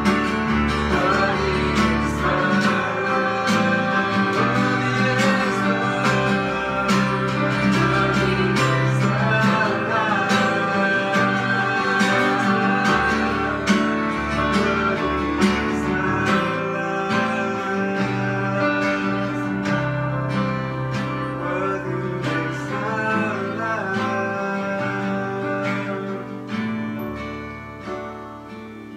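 A slow worship song played on acoustic guitar and electric keyboard, with a woman singing the melody. The music grows quieter near the end.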